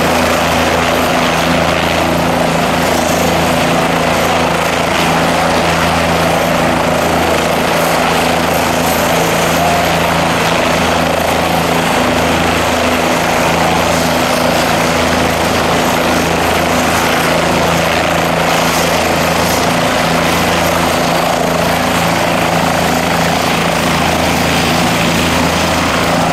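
Bell 407 helicopter running loud and steady: a single turboshaft engine's thin high whine over the steady throb of its four-blade main rotor. The whine edges up in pitch near the end.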